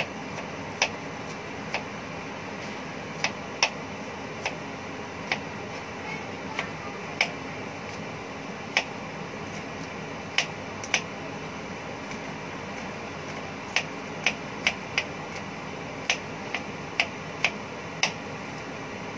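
Kitchen knife chopping on a wooden cutting board: single sharp knocks at irregular intervals, a second or more apart, coming quicker near the end. A steady hiss runs underneath.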